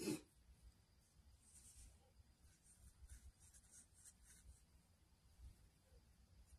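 Near silence: room tone with faint, soft rustling now and then.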